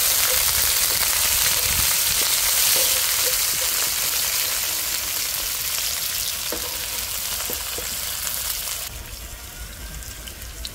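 Sliced onions, curry leaves and whole spices sizzling in hot oil in a wok, just put in to caramelize, stirred with a wooden spatula. The sizzle drops sharply in level about nine seconds in.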